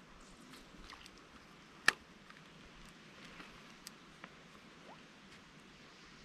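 Quiet outdoor background with a few faint ticks, and one sharp click about two seconds in.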